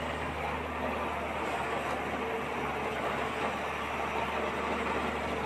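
Steady, low engine-like drone with a hiss over it, from a toy wheeled excavator driving through shallow water.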